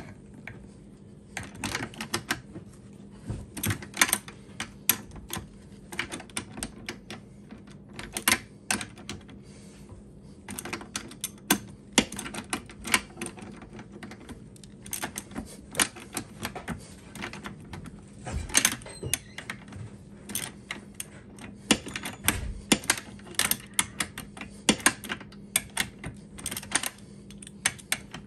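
Socket ratchet clicking in quick, irregular runs of strokes as the nut on a suspension arm link is turned, with occasional metallic clinks of the tools.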